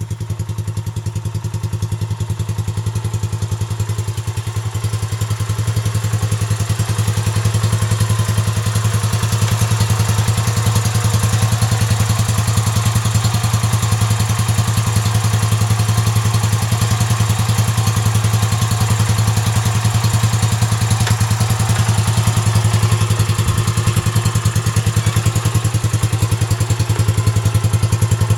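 Yamaha SRX400's single-cylinder four-stroke engine running at a steady speed through a Yoshimura aftermarket exhaust, a deep, even, rapid beat with no revving. It gets slightly louder over the first several seconds, then holds steady.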